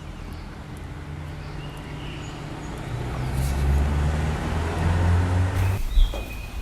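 Motor vehicle engine rumble in street traffic, growing louder over a few seconds and cutting off suddenly near the end, followed by a single thump. A few faint bird chirps sound over it.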